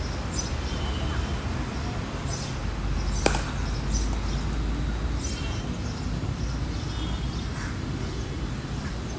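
Open-air ambience: a steady low rumble with faint, scattered chirps, broken by a single sharp click about three seconds in.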